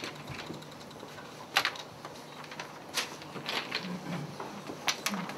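Sheets of paper rustling and crackling as they are handled and passed out, in a handful of short, separate crackles.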